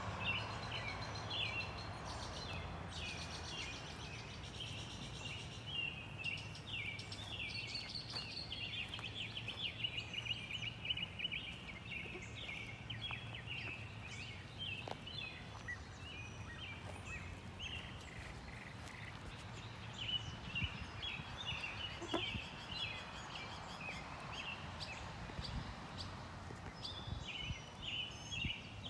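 Wild birds chirping and trilling on and off over a steady low outdoor background rumble.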